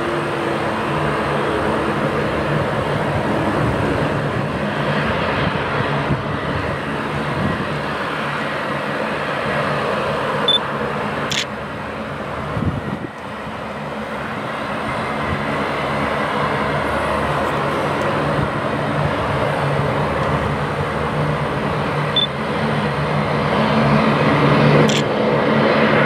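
Steady drone of a military C-130-type transport's turboprop engines running as it taxis, with a low hum held throughout.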